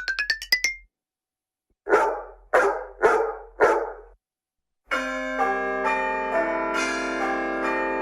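iPhone alert tones played back one after another. A rising run of quick beeps ends about a second in. Then a recorded dog barks four times, about half a second apart, and from about five seconds in a sustained chime of overlapping bell tones begins.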